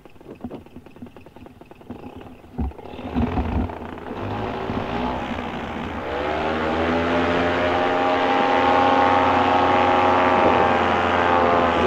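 Paramotor's two-stroke engine and propeller throttling up: after a quieter stretch with a couple of thumps, the engine's pitch climbs for a few seconds and then holds steady at high power. The engine is running smoothly on a freshly tuned carburettor.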